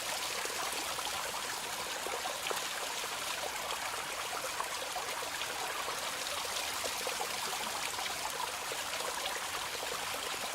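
Small spring-fed waterfall pouring and splashing steadily.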